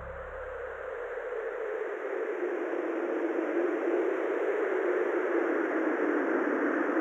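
A steady rushing noise that slowly swells, while a low drone fades out in the first second or two.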